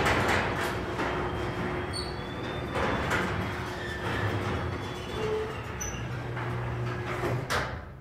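Chamberlain Whisper Drive 1¼ hp belt-drive garage door opener running steadily as it raises a sectional garage door. It stops about seven and a half seconds in as the door reaches fully open.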